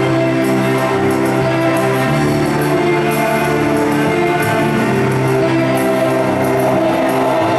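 Music with slow, held chords, possibly orchestral, changing chord about two seconds in and again near the end.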